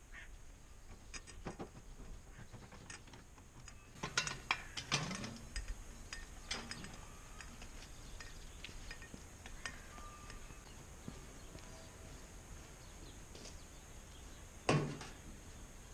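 Scattered metallic clicks and knocks from metal fittings being handled at the back of a slurry tanker, with a cluster about four to five seconds in and a louder knock near the end.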